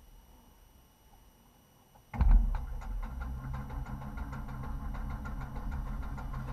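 Light aircraft's propeller engine starting about two seconds in with a sharp first burst, then running at low speed with a rapid, pulsing beat.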